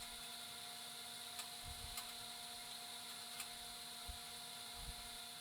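Low room tone: a steady faint electrical hum over a light hiss, with a few faint ticks.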